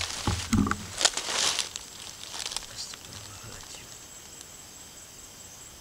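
Footsteps crunching and brushing through dry grass and undergrowth, loudest in the first two seconds, with a few smaller rustles after that before it goes quieter.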